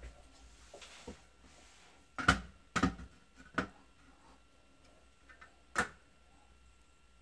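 A handful of sharp knocks and clicks, the loudest about two seconds in, as a spirit level is set against a wall and shifted along it.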